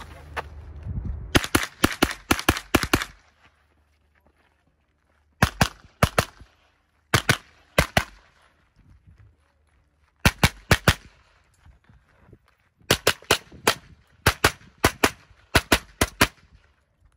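Pistol fired rapidly during a practical shooting stage, with shots in quick strings separated by short pauses. About seven shots come first, then several groups of three or four, and a longer run of a dozen or so near the end.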